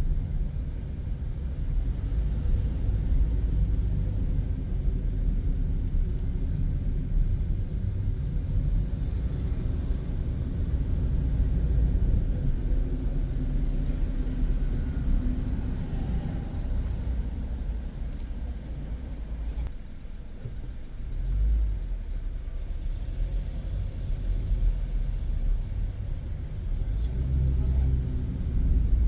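Car driving on city streets: a steady low rumble of road and engine noise, easing briefly about twenty seconds in before picking up again.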